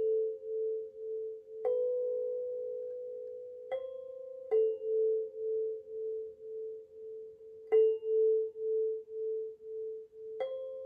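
Hokema sansula, a kalimba mounted on a small frame drum, plucked slowly: about five notes a few seconds apart, each ringing on long with a steady wavering pulse. Two neighbouring low notes take turns.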